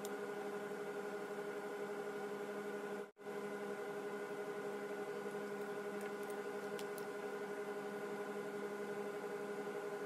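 A steady hum of several held, evenly spaced tones over a light hiss, which drops out for an instant about three seconds in; a few faint ticks come around six to seven seconds in.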